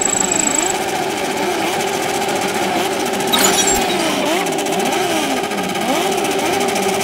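Several sport motorcycles revving in place together, their engine notes overlapping as they climb and fall again and again over a steady running tone. A brief high swish comes about three seconds in.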